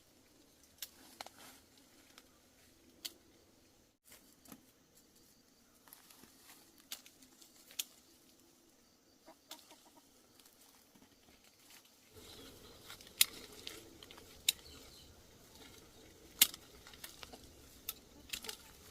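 Chickens clucking, with scattered sharp snaps and crackles; the snaps are loudest in the second half.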